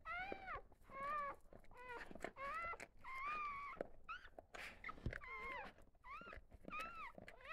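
Newborn goldendoodle-cross puppies squealing: about nine short high-pitched cries, each rising then falling in pitch.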